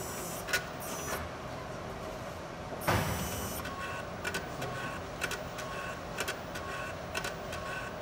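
Autosampler of a Thermo Fisher TRACE 1300 gas chromatograph at work over a steady hum. A brief rushing whoosh about three seconds in is the loudest sound. It is followed by a run of quick mechanical clicks with short high whirs as the drive steps.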